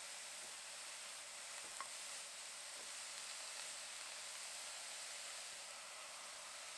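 Shredded cabbage sizzling steadily in a nonstick pot over medium-high heat while a spatula stirs it, with one small tick about two seconds in.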